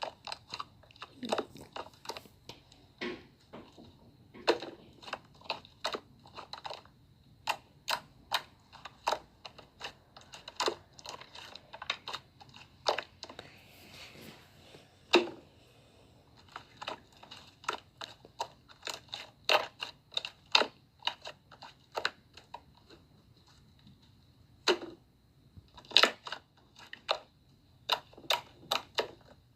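Slime being squeezed and poked by hand, giving many irregular sharp clicks and pops with short pauses between runs.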